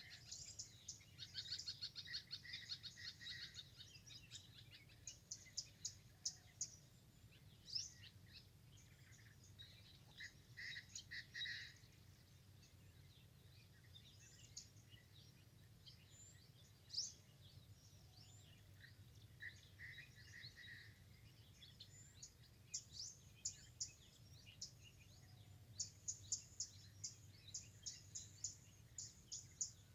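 Songbirds chirping and trilling: quick series of short, high chirps in bursts every few seconds, faint, over a low steady background hum.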